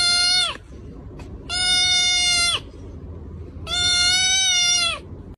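Kitten crying as a finger presses on its head: the end of one call, then two more calls about a second long, each held at one high, even pitch before dropping off.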